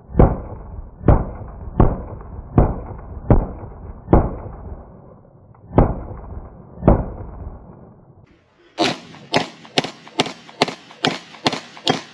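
Pistol shots fired one at a time, about a second apart, each a sharp crack with a short tail. About 8 seconds in, after a brief pause, a faster string of brighter shots follows, about two a second.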